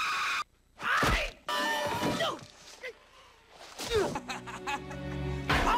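Slapstick movie sound effects: three sharp hits or thunks, about a second in, about four seconds in and near the end, with cries between them.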